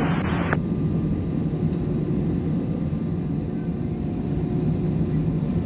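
Steady low hum inside an Airbus A321 cabin while taxiing, with the engines at idle and the air conditioning running. A hiss of radio static cuts off about half a second in.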